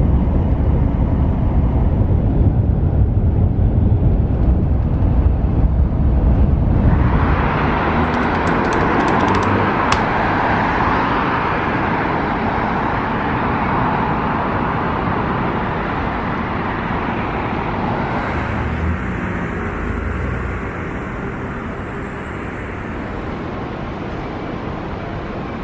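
Steady low rumble of a Tohoku Shinkansen train running at speed, heard inside the passenger car. About seven seconds in it gives way to city street traffic, an even rush of passing cars, which grows quieter near the end.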